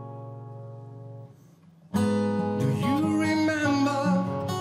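Steel-string acoustic guitar: a held chord rings out and fades. About two seconds in, the guitar comes back in strummed and a man starts singing over it.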